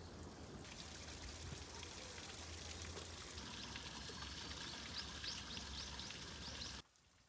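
Outdoor garden ambience: a steady wash like trickling water, with a run of short high chirps from about four to six and a half seconds in. It cuts off abruptly to a much quieter background near the end.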